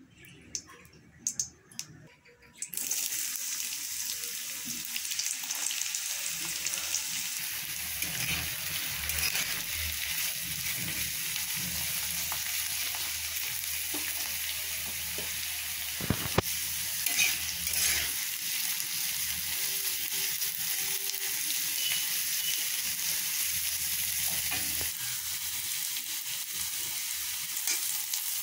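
Chopped onions frying in hot oil in a black kadai. The sizzle starts suddenly about three seconds in and runs on steadily. A metal spatula stirs them, with scattered clicks and scrapes against the pan.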